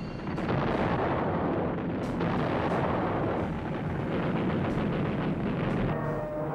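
Battle sound effects: dense, sustained heavy gunfire and explosions, starting about half a second in.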